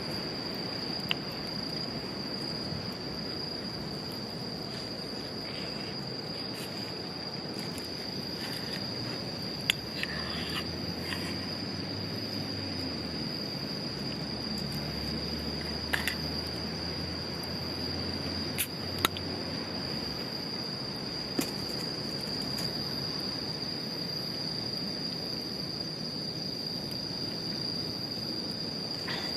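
Crickets chirring steadily in one continuous high trill. Over it come a few scattered sharp clicks, and a low hum for about ten seconds midway.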